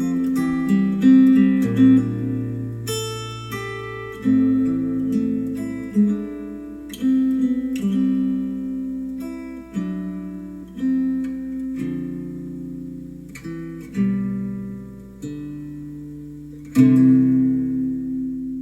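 Solo acoustic guitar music, slow plucked notes and chords each left to ring out, played through Adam Audio A3X powered studio monitors. A louder chord comes near the end.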